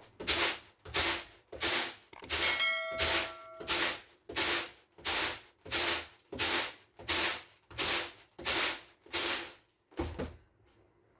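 A metal utensil being scrubbed by hand while washing dishes: a steady rhythm of rough scrubbing strokes, about one and a half a second, with a short metallic ring a few seconds in.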